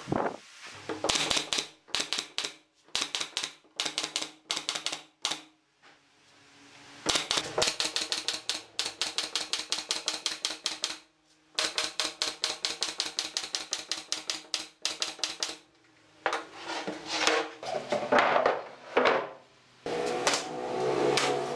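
Pneumatic brad nailer firing nails into pine pallet boards in quick runs, about four shots a second, with short pauses between runs. Near the end a different, noisier sound takes over.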